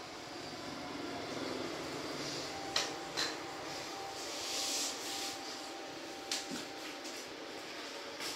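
Steady rushing hiss of water circulated by a small aquarium pump, with a few sharp clicks scattered through.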